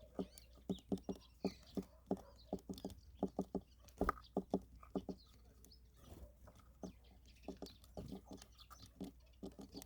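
Birds pecking at food: quick, irregular tapping, several pecks a second with short pauses, over a faint steady hum.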